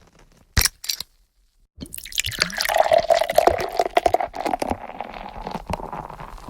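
Two short sharp clicks, then liquid pouring and glugging with many small bubbly bursts, its pitch rising slightly as the vessel fills.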